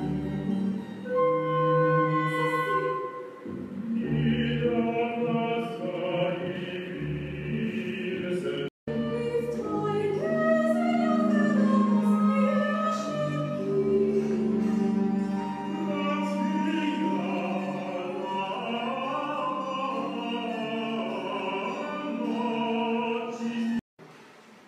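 Operatic singing with instrumental accompaniment from a video artwork's soundtrack, playing through speakers in a screening room. The sound drops out for an instant about nine seconds in and cuts off abruptly near the end.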